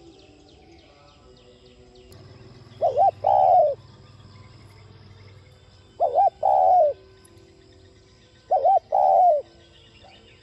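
Spotted dove calling three times, evenly spaced, each call two short coos followed by a longer, drawn-out coo that drops off at the end.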